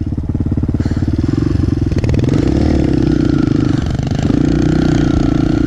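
Kawasaki KLX pitbike's small single-cylinder four-stroke engine running under throttle while riding over snow, the revs holding fairly steady with a brief dip about four seconds in.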